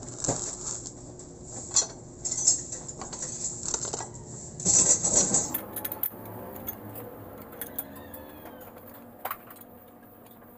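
Metal-on-metal clinks and knocks as a spoked motorcycle wheel hub is set up and centred in a machine fixture, busiest a little before halfway. After an abrupt change only faint shop background remains, with one more click.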